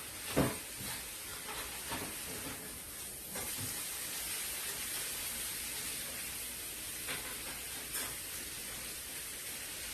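Food sizzling in a hot pan, a steady frying hiss. A sharp knock about half a second in and a few lighter clicks, as of utensils against the pan.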